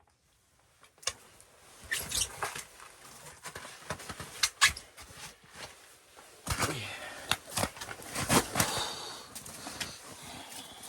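Handling noises: after about a second of near silence, irregular knocks and clicks with rustling and scraping.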